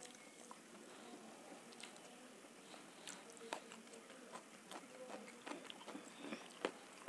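Faint close-miked eating: a mouth chewing food, and fingers mixing rice and dal on a steel plate, making scattered small wet clicks. A sharper click comes about three and a half seconds in, and the loudest one near the end.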